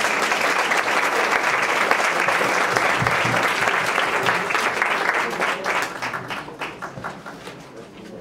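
Audience applauding: a dense spell of clapping that thins out to scattered claps and fades over the last few seconds.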